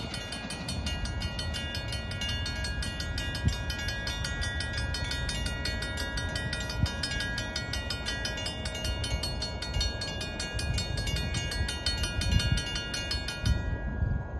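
Railroad grade-crossing bell ringing with a rapid, even stroke while the gates are down. It cuts off suddenly about a second before the end as the gates lift, the crossing resetting after the train has cleared.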